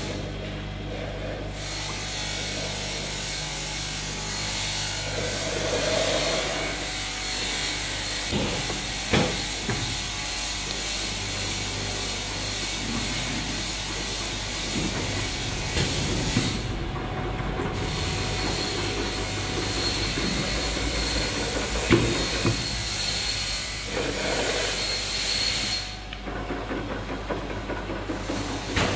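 Automatic four-head liquid filling line running, with its conveyor and pneumatic cylinders: a steady hum under a high air hiss that cuts out three times, with a few sharp clicks and knocks.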